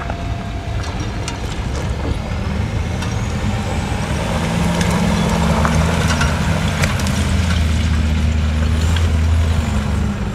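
Off-road vehicle's engine running at low revs as it crawls down a steep loose-rock slope, growing gradually louder as it comes closer, with scattered sharp clicks and a faint rising whine.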